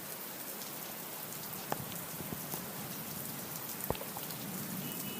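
Steady rain falling: an even hiss with scattered sharper drop ticks, two of them standing out, about two seconds in and near four seconds in.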